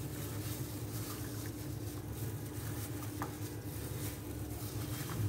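Plastic-gloved hand squishing chicken pieces through a thick yogurt marinade in a glass bowl: soft wet squelches with a few faint clicks, over a steady low hum.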